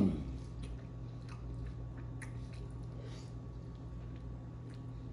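Close-up chewing and biting on ranch-coated chicken wings: wet mouth sounds with scattered soft clicks, after a short voiced hum that fades out right at the start. A steady low hum runs underneath.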